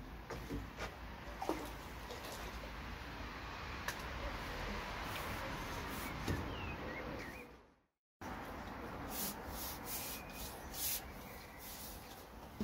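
Steady rushing wind noise on the microphone, with scattered small clicks and a few short chirps. The sound cuts out completely for a moment about eight seconds in, then the wind noise returns with more sharp clicks.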